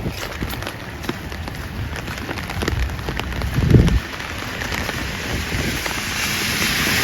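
Raindrops ticking sharply and irregularly on a nearby surface, with a low thump a little before four seconds in. From about five seconds in, the tyre hiss of a car on the wet road grows as it approaches.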